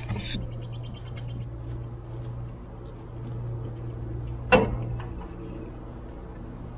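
A single sharp clunk about four and a half seconds in as the front of the Exmark Turf Tracer walk-behind mower deck is lifted. A steady low hum runs underneath, and a bird trills briefly near the start.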